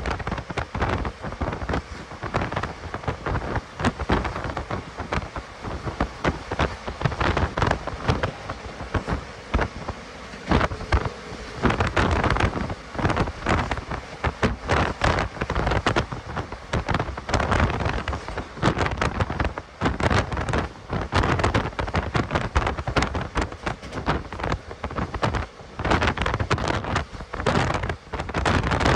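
Passenger express train running at speed: dense, irregular clatter and rattle of the coaches' wheels on the track, over a continuous rushing noise.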